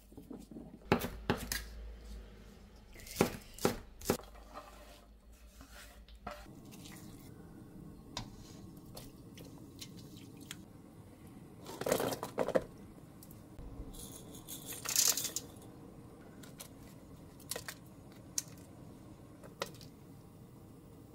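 Kitchen prep sounds: a wooden spoon knocking and scraping in a stainless steel bowl while stirring thick chili paste, then ingredients going into a steel stockpot. There are sharp clatters about 1, 3 and 4 seconds in, and a louder clatter about 12 seconds in.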